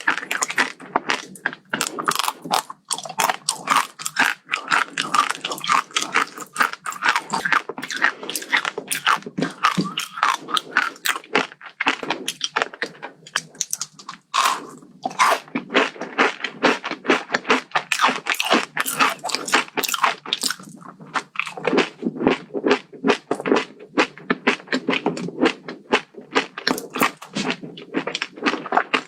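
Close-miked chewing of a crunchy kadaif-pastry chocolate dessert, with rapid crisp crunches and brief pauses between bites.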